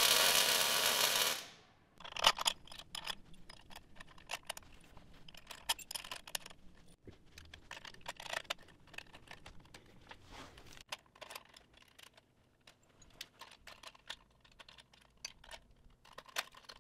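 An arc welder crackling steadily for about a second and a half, then cutting off abruptly. After that come scattered light metallic clicks and clinks of steel brackets, springs and bolts being handled and fitted together into a wheelie bar.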